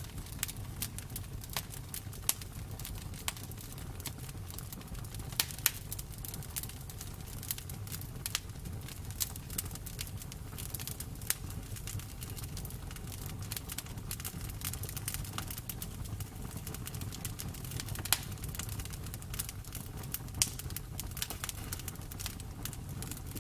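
Bonfire burning: irregular crackles and pops over a steady low rumble of the flames, with a few louder pops here and there.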